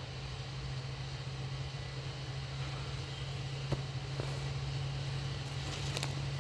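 An engine running steadily, a constant low hum, with a sharp click a little under four seconds in and a few more clicks near the end.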